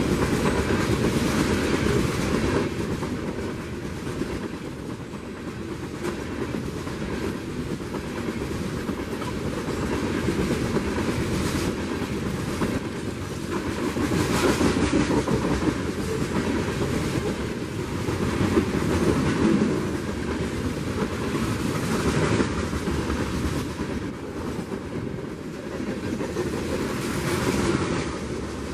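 Freight train's open-top coal cars rolling past close by: a steady rumble of steel wheels on rail, with repeated clacks as the wheels cross rail joints, swelling and easing as the cars go by.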